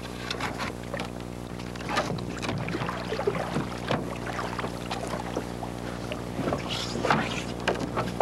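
A canoe being handled on the water: irregular splashes and knocks of paddle and hull, over a steady low hum.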